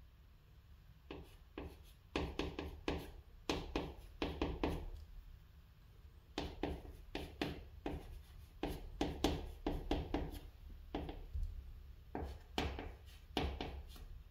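Chalk writing on a green chalkboard: clusters of short scratching strokes and light taps as characters are written, with brief pauses between groups of strokes.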